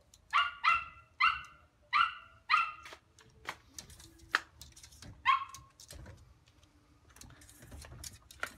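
A small Yorkshire terrier barking in short, high-pitched yaps: a quick run of about five in the first three seconds, then one more a couple of seconds later. A few sharp taps in the pause, as its paws hit the glass door.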